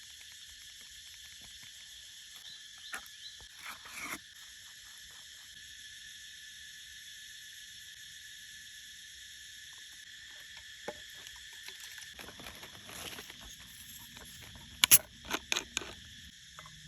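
Steady high-pitched chorus of forest insects, with a few sharp clicks about three to four seconds in and a quick cluster of louder knocks near the end.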